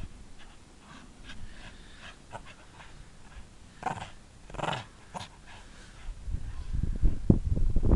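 Irish Staffordshire bull terrier tugging a rope toy, huffing and panting through its mouthful, with a couple of short breathy bursts a few seconds in and a low play-growl building louder near the end.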